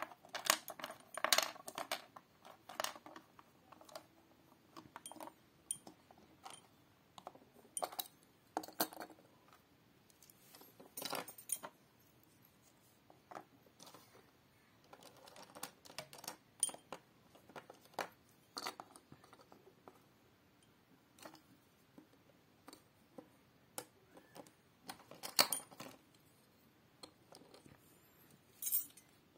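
Small hard plastic toy figurines clicking and clinking against one another as they are picked up and set down, in irregular scattered taps with a few short clusters.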